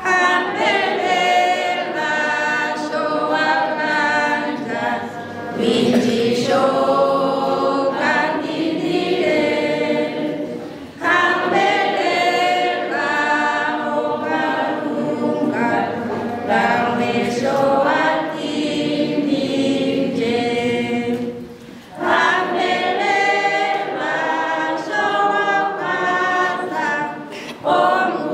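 Many voices singing together a cappella, in sung phrases with brief pauses between them.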